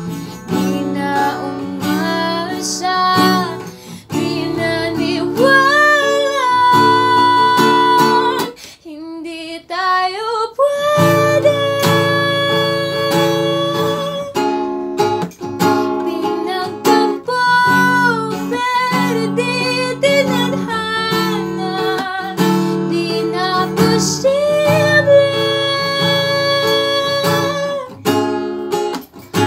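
A woman singing while strumming an acoustic guitar. About nine seconds in, the strumming drops out briefly as her voice slides upward, then the strumming comes back in.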